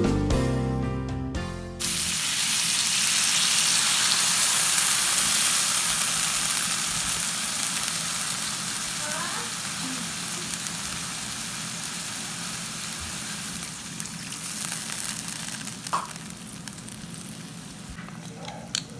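Food sizzling as it fries in a hot pan, starting suddenly about two seconds in and slowly getting quieter, with a sharp tap or two near the end.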